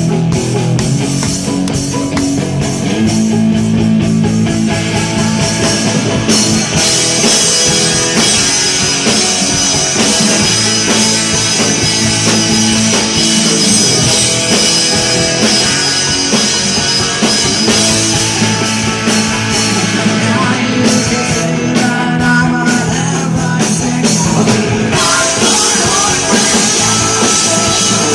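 Punk rock band playing loud live: guitars, bass and drum kit, with the cymbals coming in heavily about six seconds in.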